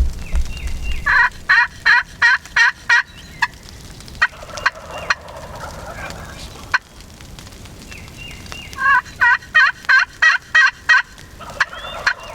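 Wild turkey gobblers gobbling: two loud gobbles, each a rapid rattling run of about four pulses a second, one about a second in and one near the end, with a few short single notes between them.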